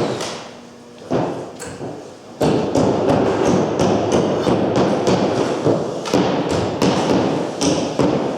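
Thumps and taps of a large-scale garden railway layout being dismantled: a few knocks early, then a dense, unbroken clatter from about two and a half seconds in.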